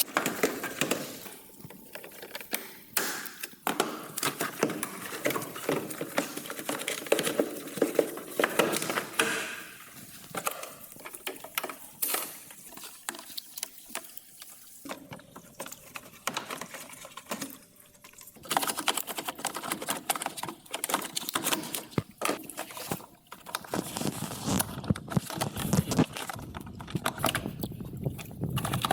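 Irregular clicks, taps and knocks of tools and parts being handled, spread unevenly with a few quieter gaps.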